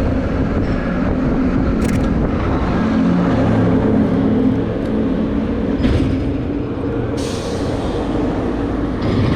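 Street traffic: a motor vehicle's engine running close by, a steady low rumble that swells about three to five seconds in, with a few brief clicks and a hiss near the end.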